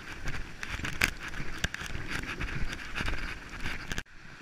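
Heavy rain pouring down, with many sharp taps of raindrops striking the chest-mounted GoPro. The sound cuts off suddenly about four seconds in.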